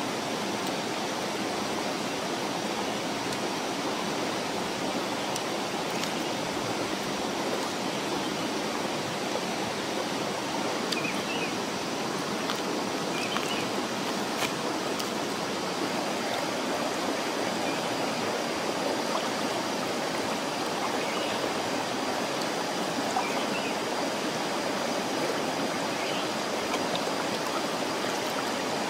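Steady rushing of a rocky jungle stream flowing over stones, with a few faint clicks.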